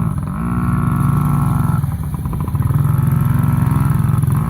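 Honda dirt bike engine running steadily at moderate revs in second gear, the pitch swinging up briefly as the throttle opens, near the start and again about two seconds in.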